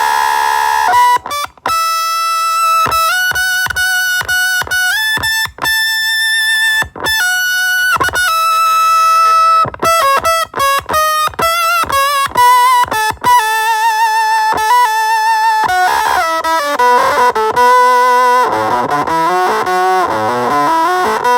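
Electric guitar played through an Avedissian octave fuzz pedal: a run of separate, sustained single notes with a thick fuzz tone. Near the end the notes slide down in pitch and then back up.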